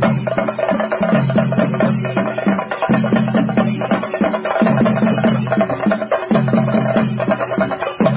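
Rapid, continuous chenda drumming with sharp stick strokes, over a sustained melody of held notes that step up and down in pitch: traditional Theyyam music.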